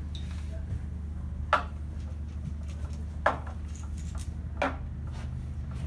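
Small metal cable-head parts being handled and set down, giving three sharp clicks and a few lighter ticks, over a steady low hum.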